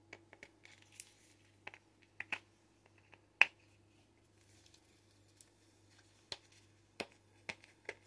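Scattered sharp clicks and snaps of a hard-to-open baking soda container being worked at by hand, the loudest about three and a half seconds in, over a faint steady hum.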